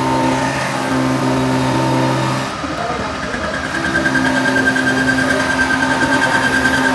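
Cylinder-head surface grinder running, its rotating wheel grinding across the deck face of a 4BD1 diesel cylinder head to skim it flat. The steady machine hum shifts about two and a half seconds in. A higher whine then comes in, and the grinding gets louder and pulses in the second half.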